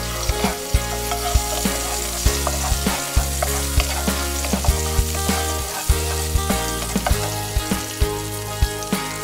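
Garlic cloves sizzling in hot olive oil in a frying pan as a wooden spoon stirs them, with background music.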